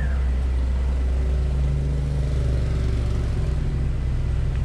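Alfa Romeo 146 Ti 2.0 Twin Spark four-cylinder engine idling steadily through its twin tailpipes, with a quiet idle. Its exhaust has had the catalytic converter removed and the middle section replaced with a straight pipe.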